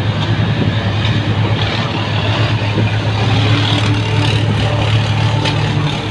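Tohatsu V50 Rabbit fire pump engine running steadily on test, with a few faint clicks late on.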